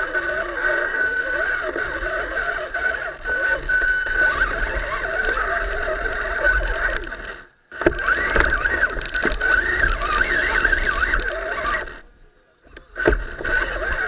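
Onboard sound of a radio-controlled off-road truck: its motor and gears whining, the pitch wavering with throttle and load. The sound cuts out briefly twice, about halfway through and near the end.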